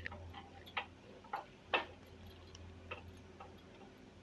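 A utensil clicking and tapping lightly against the bread and plate, a few irregular clicks, while mashed potato is spread over bread slices, over a low steady hum.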